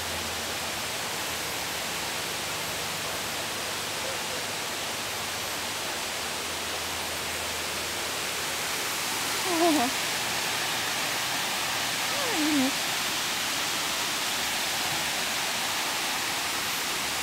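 Steady rushing outdoor hiss, like running water or wind, with two short sounds that fall in pitch, one about halfway through and one a couple of seconds later.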